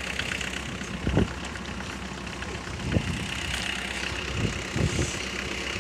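Truck engine idling steadily, with four short low thumps about one, three, four and a half and five seconds in.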